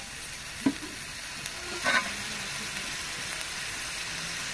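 Cauliflower and potato pieces sizzling steadily in hot oil in a metal karahi while being sautéed in spice paste, with a metal spatula knocking against the pan twice in the first two seconds.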